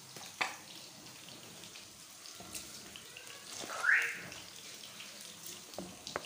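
Rice poured from a bowl into a wok of hot spiced water. A short, rising watery rush about four seconds in is the loudest sound, over a faint steady hiss, with a single click near the start.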